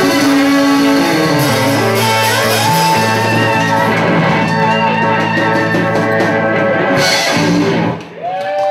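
Live blues band playing, led by electric guitar with a drum kit; the band cuts off about eight seconds in as the number ends.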